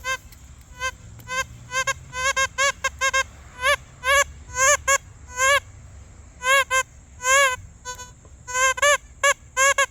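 Metal detector sounding target signals: many short, buzzy beeps at one pitch, irregularly spaced, many rising and falling in pitch as the coil sweeps back and forth over buried metal.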